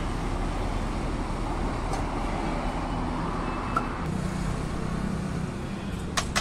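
Steady road traffic noise from vehicles passing on the road, with a heavier engine hum going by about four seconds in and a couple of sharp clicks near the end.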